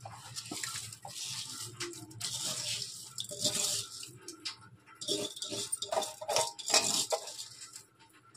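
Wet rice sliding off a steel plate into a pressure cooker of soya-chunk gravy, pushed and scraped off by hand: hissing spills of grains dropping into the liquid in several spells, with light taps of fingers and grains on the steel.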